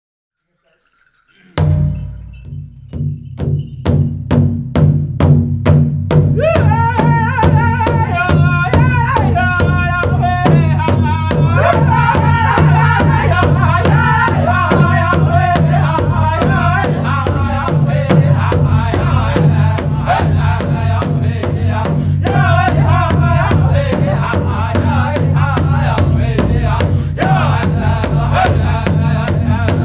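Powwow drum song: a big drum starts a steady beat about a second and a half in, and voices join in singing a few seconds later.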